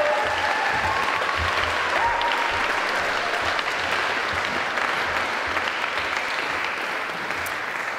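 Audience clapping and cheering, a dense steady applause with a few shouts in the first couple of seconds, dying away toward the end.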